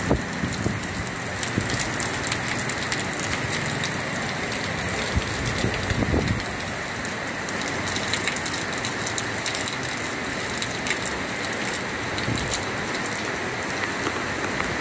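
Heavy rain pouring steadily, with many sharp drop hits close by and a few low gusts of wind on the microphone.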